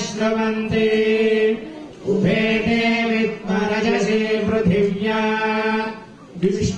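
A man chanting in long, steady-pitched phrases, broken by two short pauses for breath.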